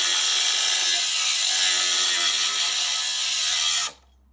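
Ryobi grinder with a cutting blade biting into the steel shell of an air-conditioner compressor: a loud, steady, rasping cut that cuts off suddenly near the end.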